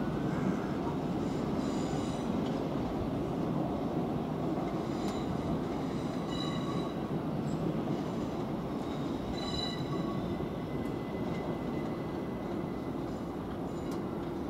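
Electric multiple-unit trains running slowly over curved track and points: a steady rumble with brief high-pitched wheel squeals, and a thin squeal held for a couple of seconds just past the middle.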